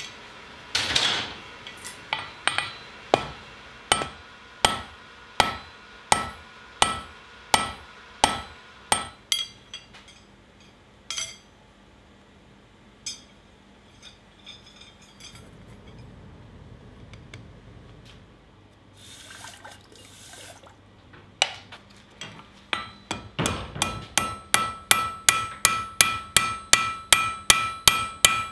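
Hand hammer striking hot steel rod on an anvil: a steady run of blows, then a pause with a few light taps. A faster run of blows follows near the end, with the anvil ringing after each one.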